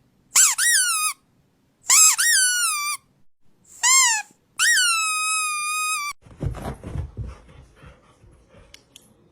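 Four loud, high-pitched squeaks, each jumping up in pitch and then sliding down, the last one held longest, in the way of a rubber squeaky toy being squeezed. They are followed by a rustling, clattering noise that fades out.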